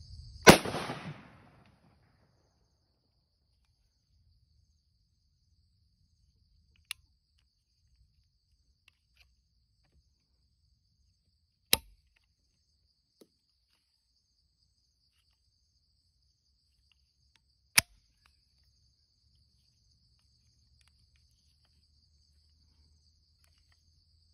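A single shot from a homemade break-action 12-gauge pistol built in the shape of a 1911, about half a second in, followed by three sharp metallic clicks as the hinged action is broken open and worked. A steady chirr of insects runs underneath.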